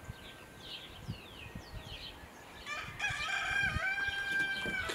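A rooster crowing once: one long call, starting a little over halfway in, that steps down in pitch partway through. Before it, short falling bird chirps.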